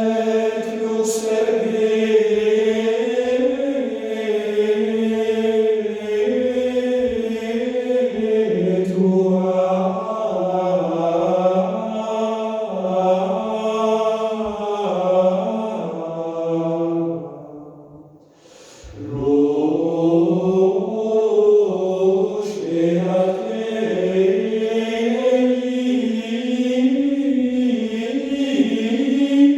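Choir singing a Requiem in slow, sustained phrases, played back through loudspeakers. The singing dies away about eighteen seconds in and a new phrase begins a second later.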